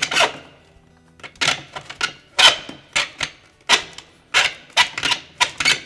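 Hand hacksaw cutting through the edge of a refrigerator door shelf retainer bar: a run of rasping saw strokes, about two a second, quickening toward the end.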